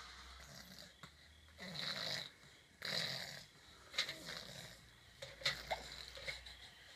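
Snoring: two long rasping breaths about two and three seconds in, followed by shorter snuffling snorts and small clicks.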